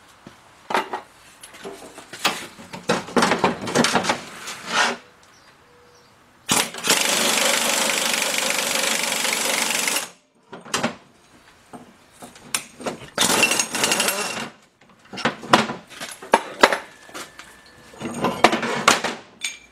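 Impact gun driving the pressure screw of a C-frame ball joint press, forcing the lower ball joint out of a Dana 30 steering knuckle. It goes in several short bursts, then one long run of about three and a half seconds that stops suddenly, followed by more short bursts and clinks of metal.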